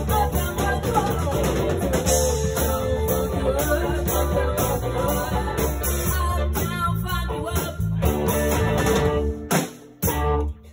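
Live rock-funk band playing with guitar, bass, drums and vocals. The music breaks off about nine and a half seconds in, with one last short hit a moment later as the song ends.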